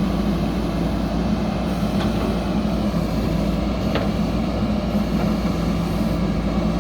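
JCB backhoe loader's diesel engine running steadily at a constant, even pitch, with a couple of faint clicks.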